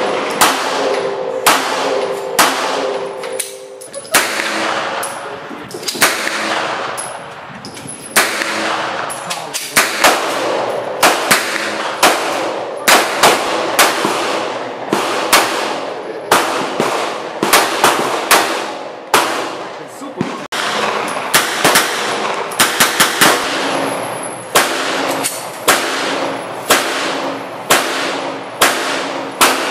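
Handgun shots, a semi-automatic pistol and a small snub-nosed revolver, fired over and over in single shots and quick strings, each with a short echoing tail.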